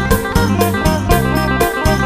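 Isan-style music: a phin, the Thai plucked lute, picking a repeating melody over a steady beat of about four strokes a second and deep bass notes.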